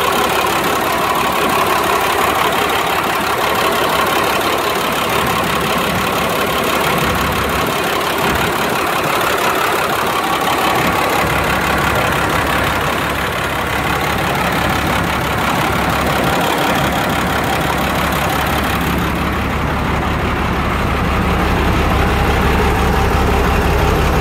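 Truck's diesel engine idling steadily, heard up close in the open engine bay, its low rumble a little stronger in the second half.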